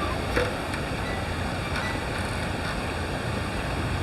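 Steady rush of a river's running water below a hanging bridge, with a faint click or two near the start.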